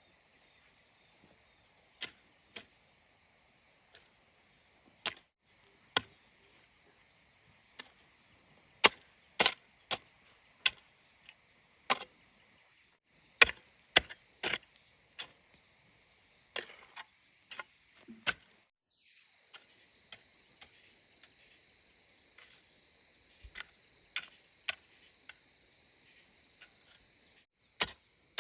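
Sharp, irregular knocks or clicks, several in quick succession at times, over a steady high-pitched insect drone.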